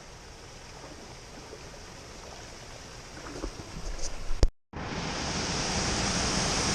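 Steady rush of flowing water from a small cascade coming down into the river, with a few knocks about three to four seconds in. The sound cuts out briefly at an edit, then the water comes back louder.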